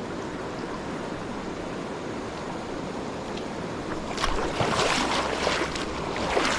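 Stream water rushing steadily. From about two-thirds of the way in, a couple of seconds of louder, irregular splashing.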